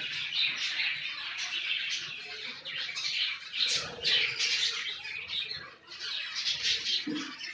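A flock of conures squawking and chattering, many harsh, high calls overlapping without a break.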